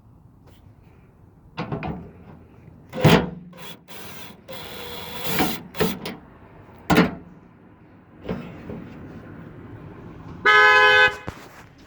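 Hand tools clicking and knocking against the tailgate's metal and plastic as screws are worked out, with a short scrape partway through. Near the end comes the loudest sound: one short two-tone car horn honk lasting about half a second.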